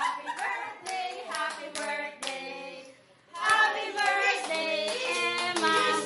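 Hands clapping several times over singing voices. The singing drops out briefly about three seconds in, then comes back louder.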